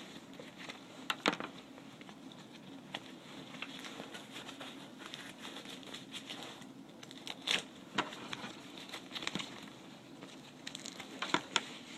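Gloves and fabric gear being handled and pulled on: soft rustling with scattered small clicks and knocks, a few louder ones around eight seconds in and near the end.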